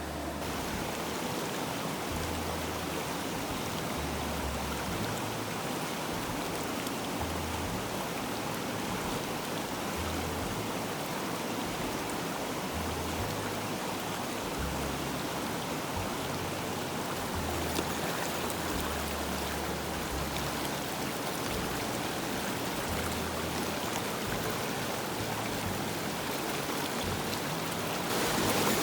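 Mountain stream flowing over rocks: a steady wash of running water.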